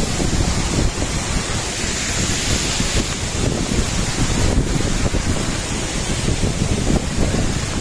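Steady rush of a waterfall, with wind buffeting the microphone in a fluttering low rumble.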